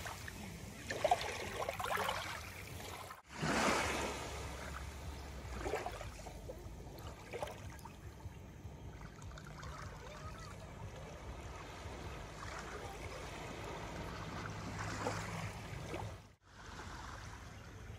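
Small waves washing up onto a sandy shore: a steady wash of surf with a few louder surges of water, broken twice by sudden brief drop-outs.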